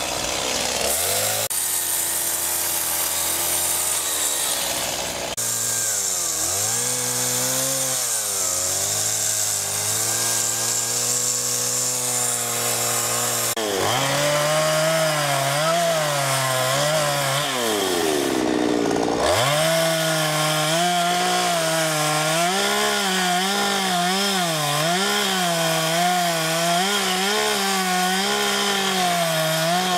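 A petrol chainsaw runs and cuts into a standing tree trunk during carving. Its engine pitch keeps rising and falling as the throttle and load change, with a deep drop about two-thirds of the way through before it picks back up.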